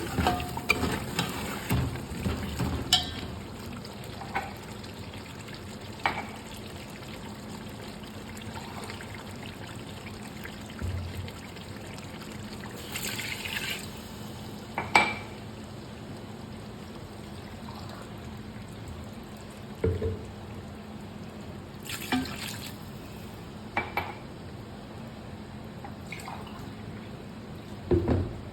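Kitchen work sounds: a steady low background noise broken every few seconds by short knocks and clinks of utensils, with a watery, liquid quality.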